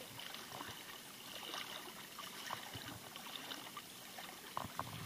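Shallow water sloshing and trickling as someone wades through it, with small splashes and ticks of droplets throughout.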